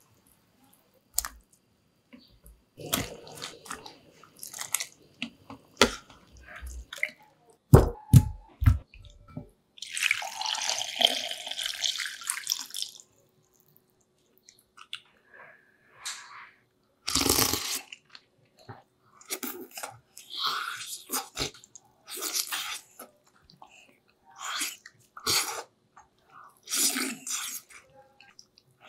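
Kitchen and eating sounds: scattered clicks and knocks with a few heavy thuds, a few seconds of liquid pouring or splashing, then short wet sounds of gloved fingers picking chicken out of a glass bowl of tinola soup.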